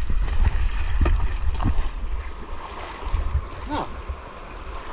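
Rushing canyon stream water with a few short splashes, over a heavy low rumble of water or wind buffeting the microphone; it drops noticeably in loudness about two seconds in.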